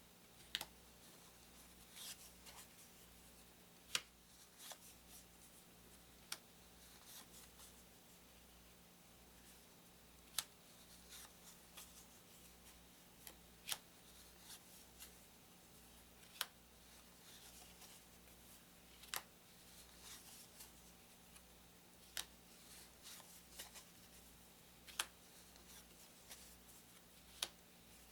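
Paper game cards being handled one at a time: a sharp click every two or three seconds, with soft rustling in between.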